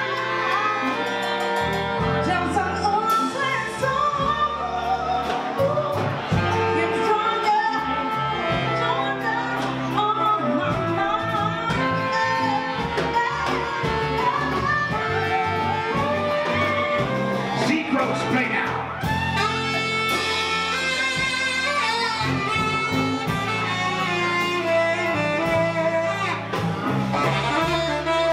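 Live soul band playing with a singer, electric bass and drums.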